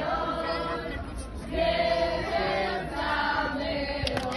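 A crowd of voices singing a song together in chorus, holding long notes, with a couple of sharp hits near the end.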